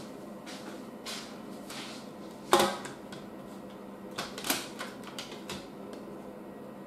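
Plastic CD case being handled and snapped open: one sharp clack about two and a half seconds in, then a run of lighter plastic clicks as the disc is worked out of it.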